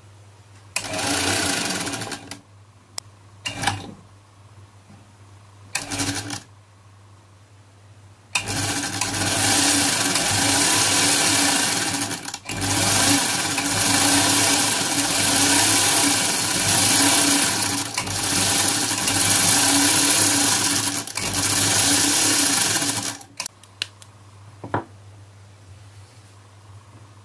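Butterfly sewing machine running with its bobbin winder engaged, filling a bobbin with thread. There are three short runs, then one long steady run of about fifteen seconds that dips briefly a few times. A few light clicks come near the end.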